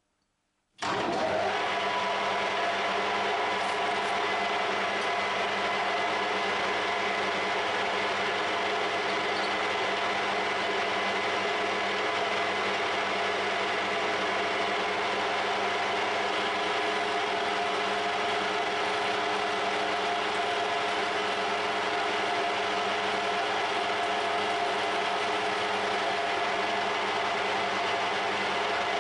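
Metal lathe running with a boring bar cutting inside a bore in a workpiece held in a four-jaw chuck: a steady machine whine with several held tones, starting abruptly about a second in.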